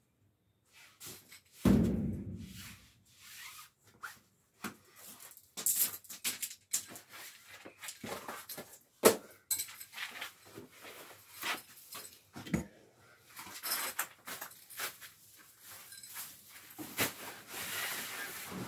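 A roller blind being handled and hung: rustling and clattering of the blind and its cord, with a heavy thump about two seconds in and sharp knocks about nine and twelve and a half seconds in.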